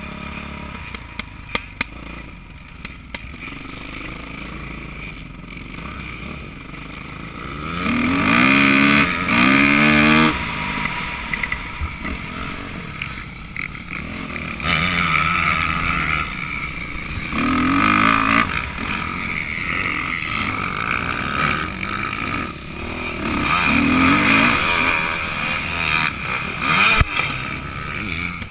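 Dirt bike engine heard from the rider's helmet, revving up and down as it is ridden around a motocross track. It runs fairly low for the first several seconds, then rises to loud, climbing revs about eight seconds in, and again around eighteen and twenty-four seconds.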